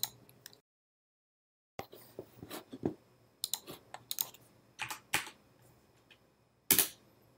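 Computer keyboard keys being pressed: short scattered keystrokes and clicks in small clusters, starting about two seconds in, with one louder stroke near the end.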